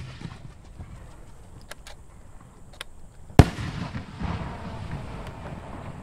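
Aerial firework shell bursting: one loud, sharp boom about three and a half seconds in, followed by a rolling echo that dies away over the next two seconds. A few faint pops come before it.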